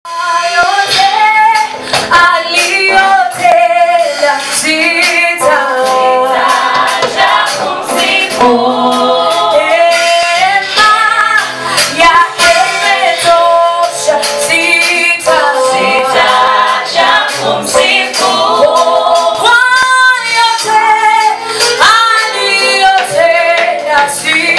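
A vocal group singing a praise and worship song in harmony, with female voices most prominent.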